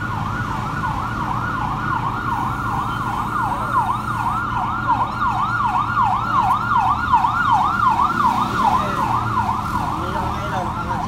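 Boom truck's electronic warning alarm sounding as a continuous siren-like warble, rising and falling about three times a second, over the truck's engine running. It is the truck's outrigger safety warning.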